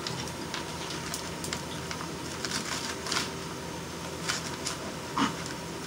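A kitchen knife cutting lettuce on a cutting board: about half a dozen short, separate cuts spread out over a steady background hiss.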